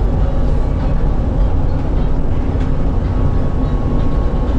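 MRT-3 light-rail train running, heard aboard as a steady loud low rumble with a faint steady whine above it.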